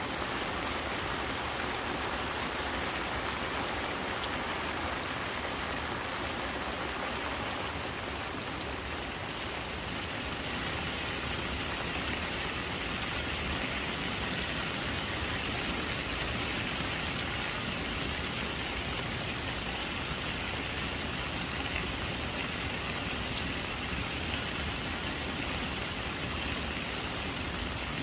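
Steady rain falling, with an occasional sharper tick of a single drop.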